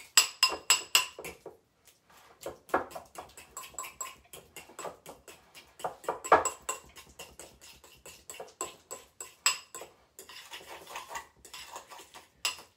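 A metal fork stirring and mashing guacamole in a glass bowl: quick, irregular clinks of the tines against the glass, several a second, louder in a few brisk bursts.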